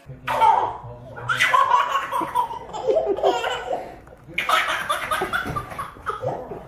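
A toddler laughing hard in several bouts, a short burst at first and then two long runs of giggling.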